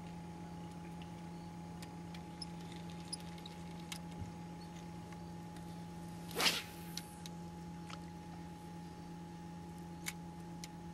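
A steady low hum with a fainter, higher steady tone, the sound of an electric trolling motor pulling the boat while longlining, under scattered light clicks from rod and reel handling. About six and a half seconds in comes one brief, loud rush of noise.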